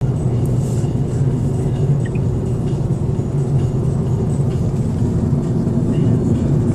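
Steady low rumble of a car driving on the road, road and engine noise heard from inside the cabin.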